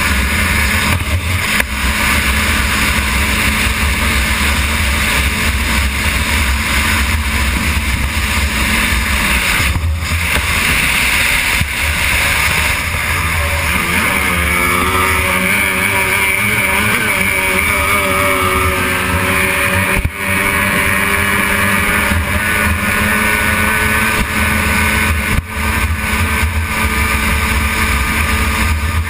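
Racing outboard engine of a stock hydroplane running hard, heard onboard under heavy wind and spray noise. About halfway through, the engine note wavers and shifts in pitch as the boat rounds a turn buoy, then steadies again.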